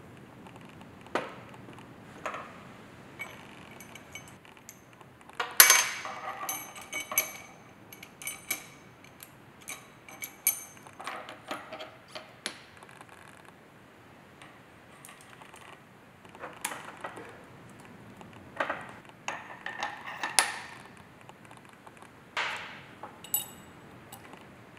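Steel gearbox gears and brass synchro rings clinking and knocking against each other, the mainshaft and the steel bench as they are fitted onto a Ford Rocket four-speed gearbox mainshaft. The knocks come in irregular clusters, some with a short high metallic ring.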